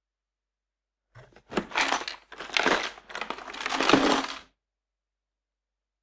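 Toolbox being opened or shut, its lid, latches and contents clattering in a short series of bursts over about three seconds, loudest near the end, then stopping abruptly.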